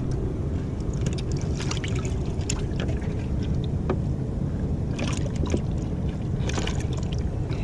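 Steady low rumble on a fishing boat, with a few short crackling splashes or knocks scattered through it.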